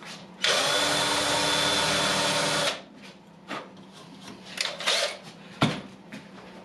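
A small handheld power tool runs steadily for about two seconds and then stops. It is grinding burnt carbon off the circuit board at the spot where an IGBT transistor failed. A few light scrapes and clicks follow.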